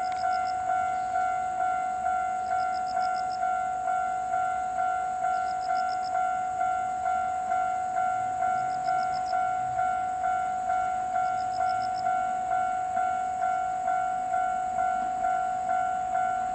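Japanese railway level-crossing alarm ringing its steady electronic ding, about two strikes a second, each fading before the next: the warning that a train is approaching.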